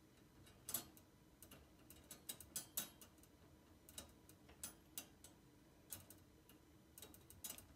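Wire dog crate door and its latch clicking and rattling as a dog nudges at it with her nose: a string of light, irregular clicks and taps, some in quick pairs.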